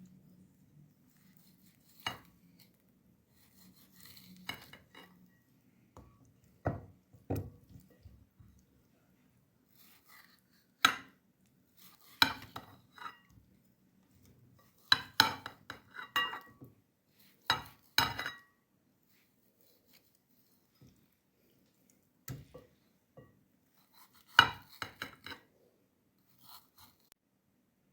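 Kitchen utensils clinking and knocking against dishes and bowls: scattered clinks and taps, some ringing briefly, with quiet gaps between them.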